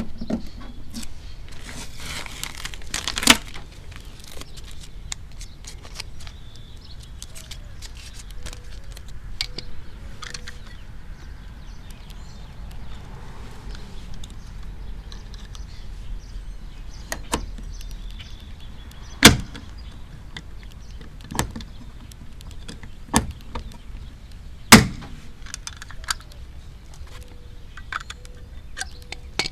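Pop rivet gun setting long pop rivets through a plastic front spoiler into a bumper cover: repeated small clicks from the gun's pulls, and a few sharp snaps as the rivet stems break off, the loudest about 19 and 25 seconds in.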